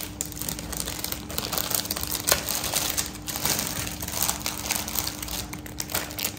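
Clear plastic jewellery packets crinkling and rustling as hands shuffle through a pile of them, with many small crackles throughout.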